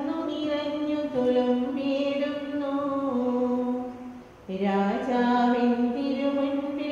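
A single voice sings a slow liturgical chant of the Mass. It holds long notes that step up and down, takes a short breath about four seconds in, then goes on.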